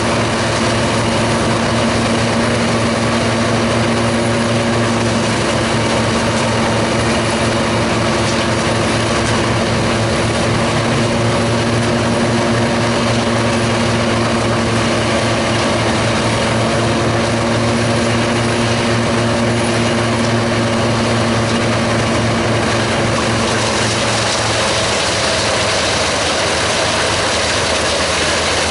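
Giant truck-mounted wood chipper running under power while chipping logs, a loud, steady heavy diesel drone mixed with a rough grinding noise. About 23 seconds in the steady engine hum weakens and the sound turns noisier.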